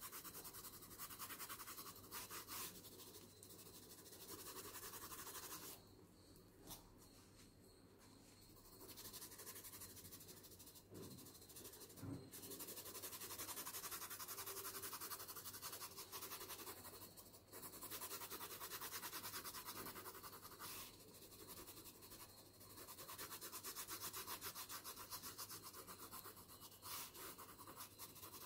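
Pencil held nearly flat shading on paper: faint, scratchy rubbing of the lead in spells of a few seconds with short pauses, gradually building up the tone.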